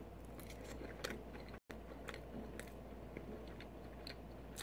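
A mouthful of poutine (fries, cheese curds, gravy and spicy chicken pieces) being chewed close to the microphone: faint, scattered wet mouth clicks and smacks.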